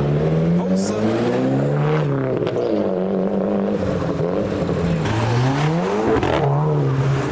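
A car engine revving up and down several times, its pitch climbing and dropping repeatedly.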